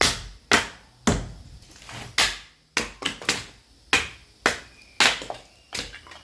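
Sledgehammer blows driving a steel chisel to split firewood: about a dozen sharp, ringing strikes, roughly two a second at an uneven pace, some in quick pairs.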